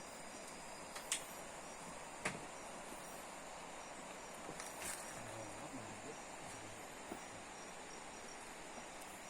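Insects in the forest chirring steadily at dusk, a continuous high-pitched drone with a faint pulsing note in it. Two sharp clicks stand out, about a second in and again a little after two seconds.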